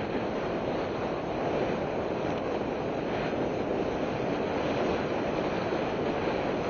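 Steady rushing noise of a mountain bike being ridden along a trail, with wind buffeting the microphone.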